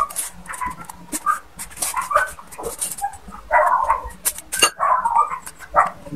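A dog yipping and whimpering in short calls again and again, mixed with a few sharp clicks.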